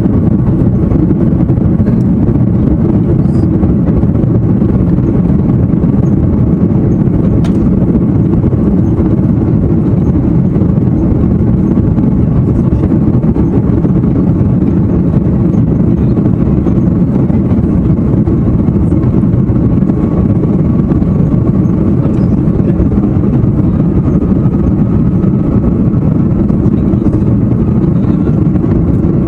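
Airbus A330-300 jet airliner heard from inside the cabin: a loud, steady rumble of engines and rushing air.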